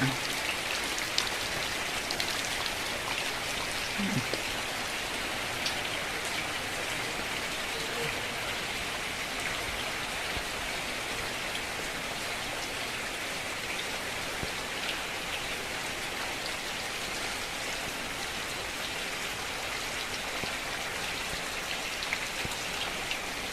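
Heavy rain falling and pattering on surfaces: a steady, even hiss of a downpour.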